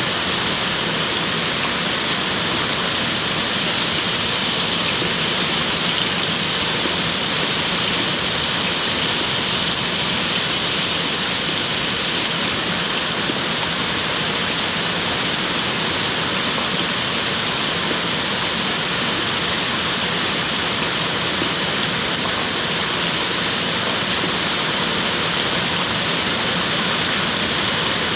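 Steady rain falling, an even hiss that holds at one level without breaks.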